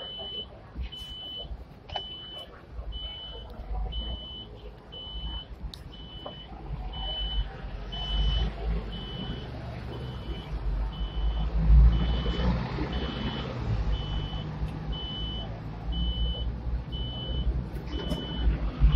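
An electronic beep repeating steadily about once a second, always at the same high pitch, over the low rumble of the tram and passing road traffic. The rumble grows from about eight seconds in.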